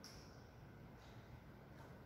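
Near silence: faint room tone with a steady low hum and a few very faint, brief high ticks.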